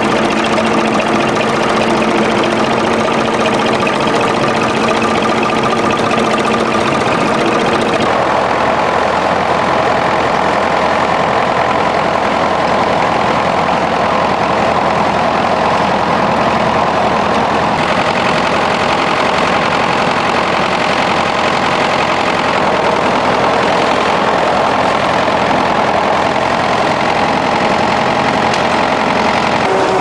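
Vintage farm tractor engines running steadily under load while pulling ploughs through stubble. The engine note changes abruptly twice, about 8 and 18 seconds in.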